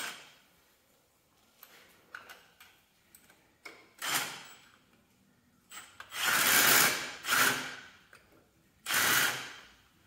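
Red cordless power tool driving the 7/16 bolts of a hydraulic valve bracket tight, in four short bursts; the longest runs for about a second, about six seconds in. Small clicks and taps come between the bursts.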